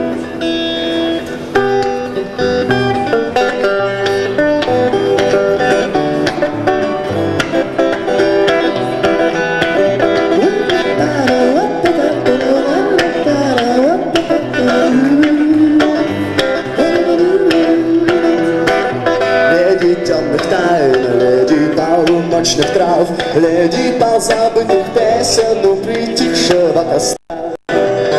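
Live rock band playing an instrumental passage: an electric guitar lead with bending notes over bass and drums. The sound cuts out briefly twice near the end.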